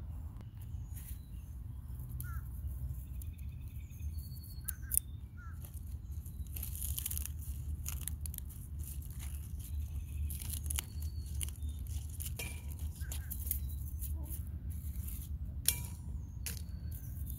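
Outdoor garden ambience: a steady low rumble of wind on the microphone, with scattered light clicks and rustles from handling and a few faint short bird chirps.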